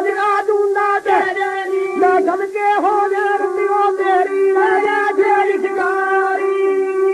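Music from an old Punjabi shellac 78 rpm record: a high melody line that slides and bends over a steady held note.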